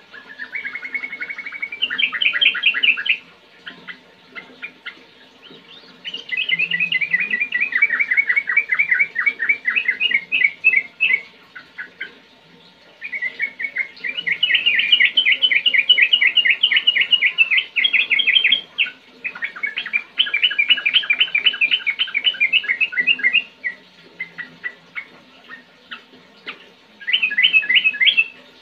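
Caged yellow-vented bulbul singing in fast rolling phrases. There are five bursts of rapidly repeated chirps, each lasting one to six seconds, with short pauses between them.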